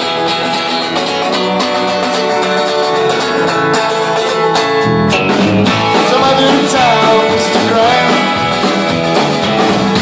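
Live country-rock band playing a song intro: strummed acoustic and electric guitars. Bass and drums come in about halfway through.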